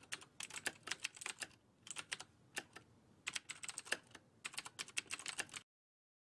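Computer keyboard typing: quick key clicks in runs, with two short pauses, stopping shortly before the end.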